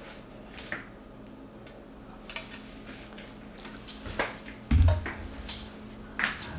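Small plastic clicks and taps from handling a DJI Mavic Mini drone, with a heavier thump a little before five seconds in, over a faint steady hum.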